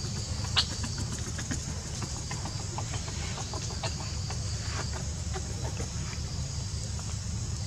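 Short, scattered chirps and clucking calls from animals, the sharpest about half a second in, over a steady low rumble and a steady high hiss.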